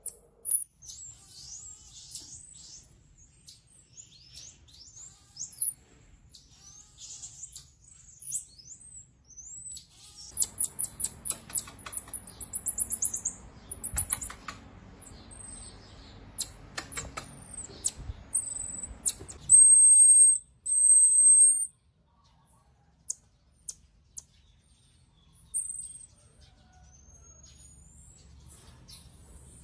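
Baby marmosets calling with very high, thin chirps, trills and short whistles. About two-thirds of the way through come two long, steady whistles, the loudest calls. Across the middle stretch there is also rapid light clicking and rustling.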